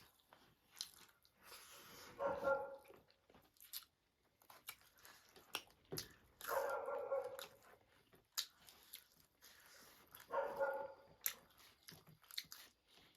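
Close-miked eating: chewing and crunching with many sharp mouth clicks, broken about every four seconds by a short whine-like voiced sound.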